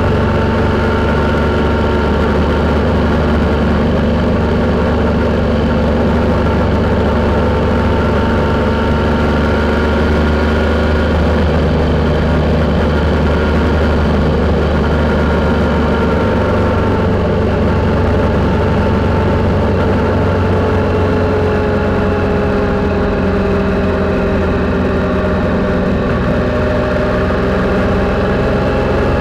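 Triumph Sprint's three-cylinder engine running at a steady cruise, picked up by a camera mounted on the bike. The engine note sags slightly about three-quarters of the way through and then rises again.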